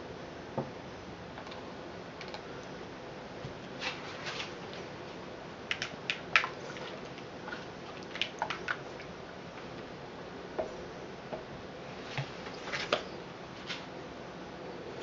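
Scattered light taps and clicks of plastic cups and a plastic mixing bowl being handled and set down, with a faint steady hum behind.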